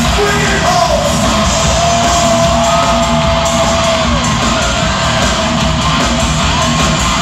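Live hard rock band playing loud in an arena, heard from out in the crowd: dense guitars and drums, with a long held note about two seconds in that lasts a couple of seconds.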